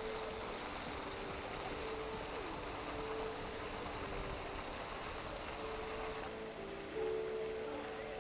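Ground-level fountain jets spraying and splashing onto stone paving as a steady water hiss. The hiss falls away abruptly about six seconds in.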